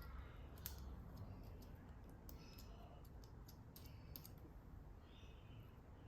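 Faint, scattered clicks and taps of plastic parts of a Logitech wireless keyboard being handled and fitted together during reassembly, most of them clustered in the middle.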